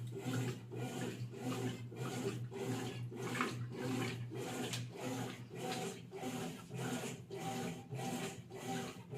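Consul washing machine running: a regular rhythmic rubbing churn over a steady motor hum. The owner wonders whether this sound is a fault.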